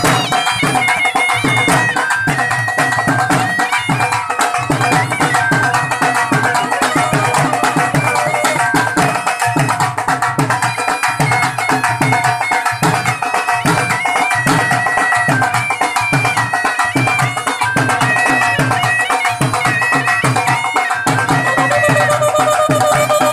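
Live Punjabi dhol band: dhol drums beating a steady, driving rhythm under a loud wind instrument playing a melody of held notes.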